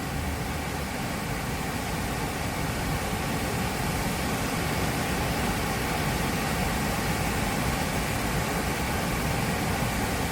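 Small quadcopter drone's propellers whirring steadily, growing slightly louder.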